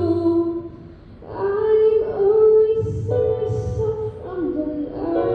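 Music: a woman sings long, held notes, pausing briefly about a second in before the next phrase, over a low sustained accompaniment that swells in under the voice after about three seconds.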